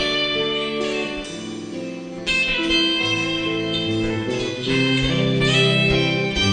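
Live band music led by a guitar picking a slow arpeggiated passage of sustained notes, with no singing. It softens briefly, then comes back stronger about two seconds in.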